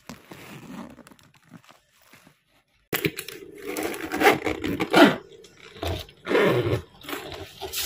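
A suitcase zipper is pulled, faintly. After a short silence come louder scrapes, rattles and knocks as a hard-shell suitcase is lifted and its telescoping handle is slid and worked.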